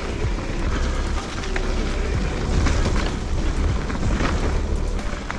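Mountain bike ridden over rough trail: tyre noise with frequent clicks and rattles from bumps, over a heavy rumble of wind on the microphone.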